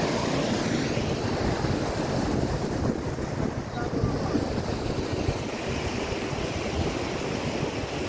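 Snowmelt stream rushing over rocks, with wind buffeting the microphone.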